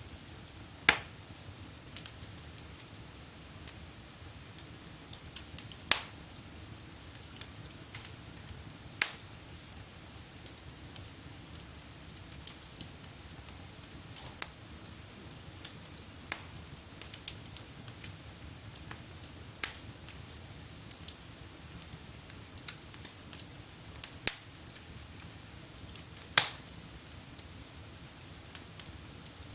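Wood fire burning in a fireplace, crackling with sharp pops every few seconds over a low steady rumble of flame.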